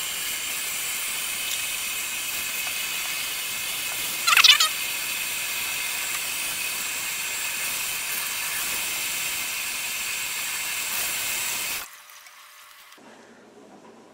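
Kitchen faucet running steadily into a stainless steel sink while a dyed shirt is rinsed under the stream, with one brief louder burst about four seconds in. The water cuts off about twelve seconds in.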